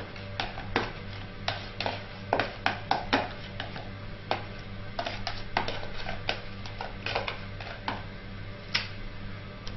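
Paper crinkling and rustling in many quick, irregular crackles as damp vegetable-and-salt paste is tipped off a sheet of baking paper onto a lined baking tray. A steady low hum runs underneath.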